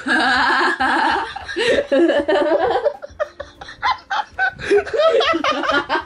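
People laughing hard and unable to stop: loud, breathy fits of laughter that ease off a little about halfway through and then pick up again.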